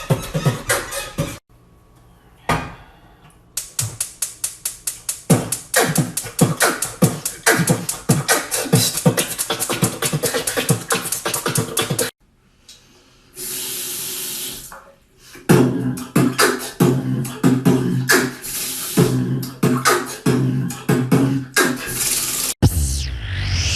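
Beatboxing: a person making rhythmic mouth percussion that imitates kick drums, snares and hi-hats, broken by a couple of short pauses. About fourteen seconds in there is a steady hiss lasting about a second and a half.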